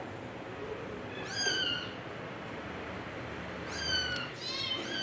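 Kittens mewing in a wire cage: one high-pitched, falling mew about a second in, then several overlapping mews near the end.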